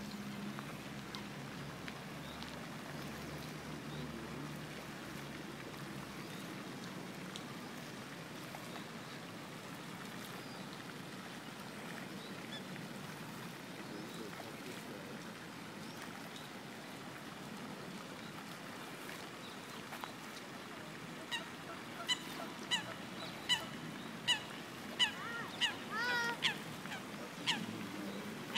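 Mallard ducks quacking: a run of about ten loud, short calls, roughly one every half to three-quarters of a second, starting about twenty seconds in. Before that only a steady outdoor hiss.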